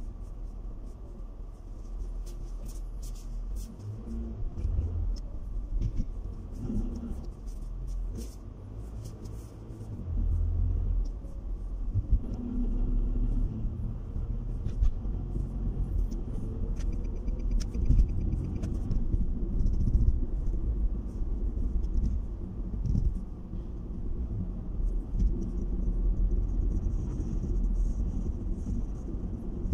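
Low rumble of a car driving, getting louder about ten seconds in and staying up, with scattered light clicks and rattles.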